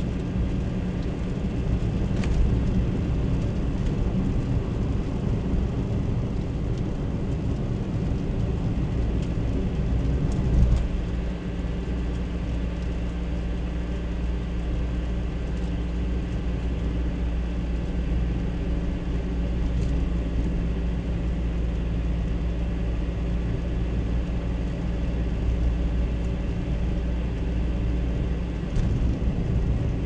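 Car cabin noise while driving on a snow-covered road: a steady low rumble of engine and tyres. A brief louder thump comes about ten and a half seconds in, after which the rumble settles slightly lower.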